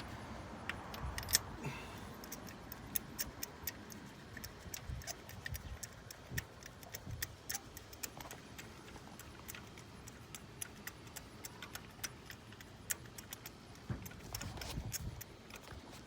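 Light metallic clicks and clinks of hand tools at irregular intervals, a few a second, while a new spark plug is being threaded in and fitted.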